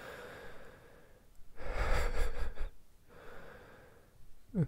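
A person breathing heavily: a long, noisy breath about a second and a half in, a shorter one a little later, and a brief falling tone just before the end.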